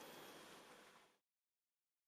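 Near silence: faint room hiss that cuts off abruptly into dead silence a little over a second in.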